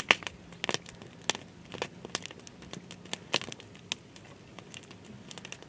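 Irregular sharp crackles and snaps, a few each second and uneven in strength, over a faint low steady hum.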